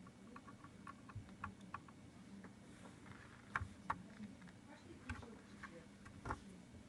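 Faint, irregular small clicks and taps of hand-soldering work on a USB connector, with a few sharper clicks about halfway through and near the end.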